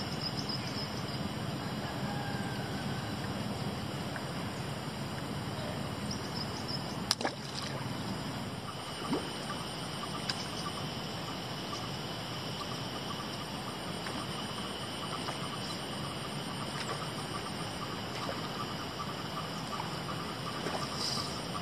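Steady rush of flowing river water with a thin, steady insect drone above it. A sharp click about seven seconds in, and two softer ones a few seconds later.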